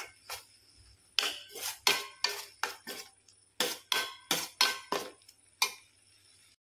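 Metal spatula clinking and scraping against a stainless steel pan as grated carrots simmering in reduced milk are stirred, about three strokes a second in two runs with a short pause, each clink ringing briefly; the stirring stops near the end.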